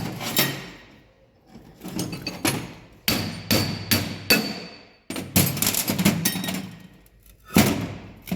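Hammer blows on steel, more than a dozen irregular strikes, some with a short metallic ring, while working on a Ford Transit's worn front wheel bearing.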